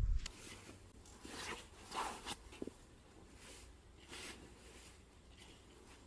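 Faint scattered rustles and scuffs, a handful of brief ones, over a low steady rumble.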